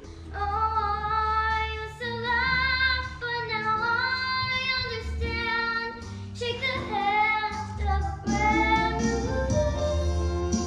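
A young girl singing a solo, holding long notes, over instrumental accompaniment.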